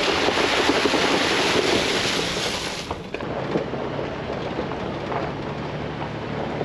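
Vehicle driving on a rough forest road: a steady rush of tyre and road noise with scattered crackle. It is louder and brighter for the first three seconds, then eases to a lower rumble.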